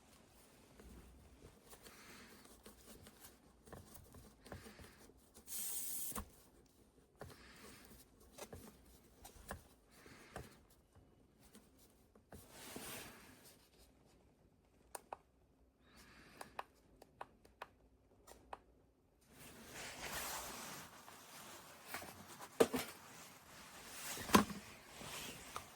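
Faint handling noises: scattered rustling, light clicks and brief swishes, with two sharp knocks near the end.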